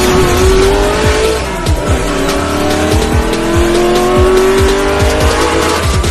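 Car engine revving, rising in pitch twice as if climbing through gears, over a steady beat of music.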